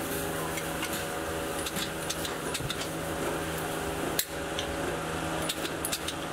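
Sharp metallic clinks and taps as sheet-metal pieces are handled against a steel muffler pipe, scattered through a steady electrical hum of workshop machinery.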